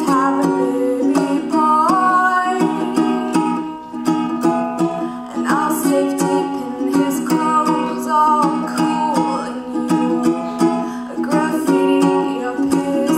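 A woman singing to her own strummed ukulele, the strums keeping a steady rhythm under the melody.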